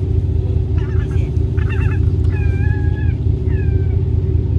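Gulls giving several short, falling mewing calls in quick succession, over the steady low rumble of the drift-ice sightseeing ship's engine.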